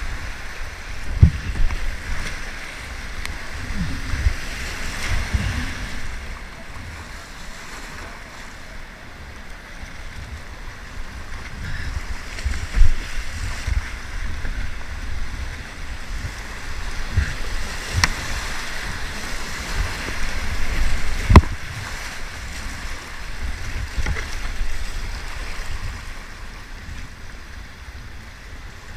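Whitewater rapids rushing and splashing around a kayak as it is paddled through, with low wind rumble on the microphone. A few sharp knocks stand out, the loudest about 21 seconds in.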